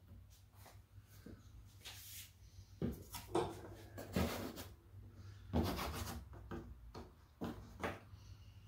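Thin hardwood backer strips and hands rubbing and scraping on a particle-board drawer bottom as the strips are pressed into fresh glue, in about five short strokes over a low steady hum.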